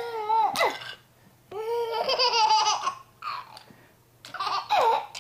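A baby laughing in high-pitched squealing bursts, about four of them, with short quiet gaps between.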